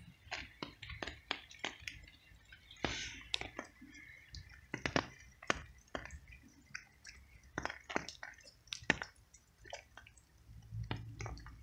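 Cat chewing and lapping food, with irregular wet clicks and smacks a few times a second.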